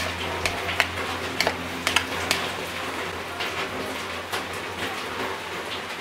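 Light clicks and taps of sliced grilled duck being tossed and mixed by hand in a bowl, busiest in the first couple of seconds and sparser after, over a steady background hiss.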